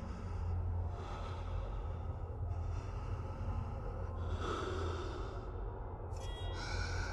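A man's heavy breathing over a low, steady rumble.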